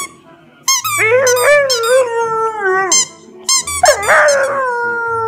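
A dog chewing a squeaky rubber ball, squeezing out two long, wavering high squeals, the second starting about three and a half seconds in.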